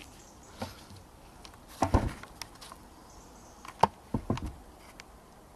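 Handling noise from plastic engine-bay parts: a few scattered sharp clicks and knocks, with two short clusters around two and four seconds in.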